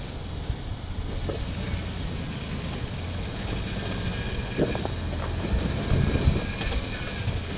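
Toyota Land Cruiser 90-series engine running at idle as the 4x4 crawls through a deep rut, with a few knocks from the vehicle about four and a half to six and a half seconds in.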